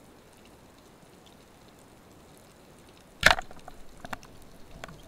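Band-powered speargun (Michelangelo Demo 2 85) fired underwater: one sharp crack about three seconds in, followed by a few fainter clicks, over a low steady underwater hiss.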